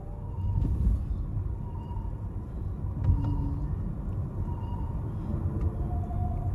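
Road noise heard from inside a moving car's cabin: a steady low rumble of engine and tyres.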